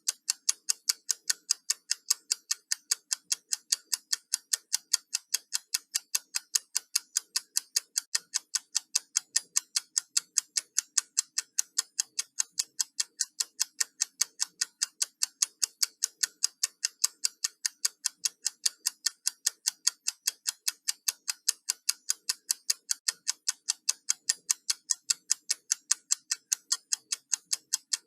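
Countdown timer ticking like a clock: sharp, evenly spaced ticks, several a second, in a steady unbroken rhythm.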